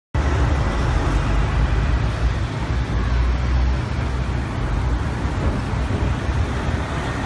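Busy city street traffic: a steady rumble of car and taxi engines and tyres, cutting in suddenly at the start.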